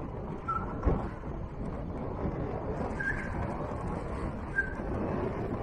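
Vehicle driving slowly on a sandy dirt track: steady low rumble of tyres and wind buffeting the microphone, with a single thump about a second in and three short high chirps.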